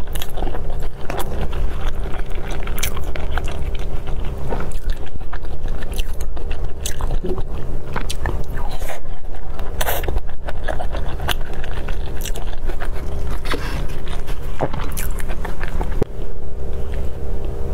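Close-miked chewing and biting of a soft filled steamed bun, with many small mouth clicks and the scrape and tap of wooden chopsticks on a plastic tub, over a steady low hum.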